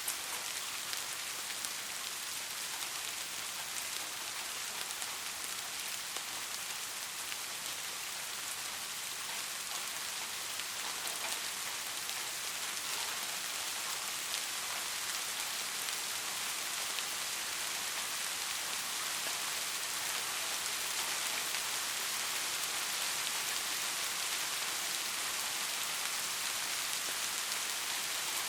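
Steady rain falling on a surface: an even hiss of many drops with scattered individual drop ticks, growing slightly heavier toward the end.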